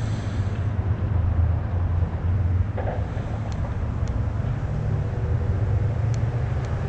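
Low, steady rumble of road traffic.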